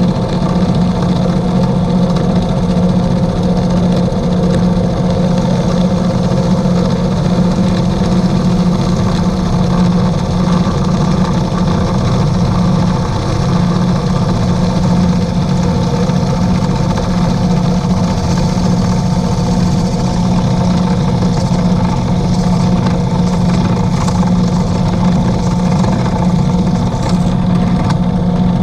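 Electric drill running steadily for almost half a minute while it bores a rivet hole through a fiberglass rocket body tube, its motor holding one steady hum, then stopping at the end.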